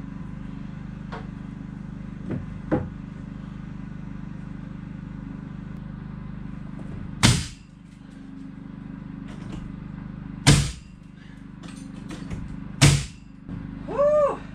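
Three loud, sharp knocks a few seconds apart, with a couple of lighter knocks earlier, over a steady low hum; a short vocal sound follows near the end.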